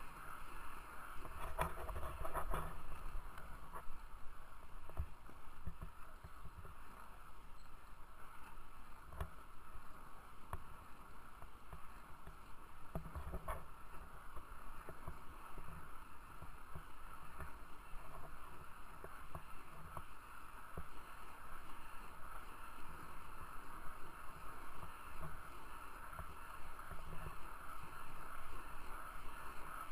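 Freeline skate wheels rolling over an asphalt path: a steady gritty rolling rush with low rumble, broken by a few sharp clicks from bumps in the surface.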